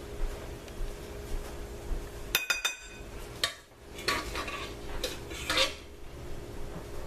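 Serving utensils clinking and scraping against a dish while barbecue chicken is plated, with a short run of ringing clinks about two and a half seconds in and scraping a second or two later, over a steady low hum.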